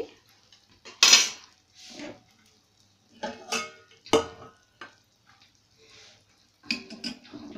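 Metal kitchen utensils clinking and clanking: several separate knocks of metal on metal, the loudest about a second in, some with a short ring.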